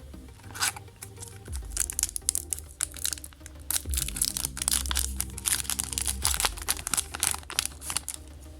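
Foil wrapper of a Yu-Gi-Oh booster pack crinkling and crackling as it is handled and opened, over soft background music.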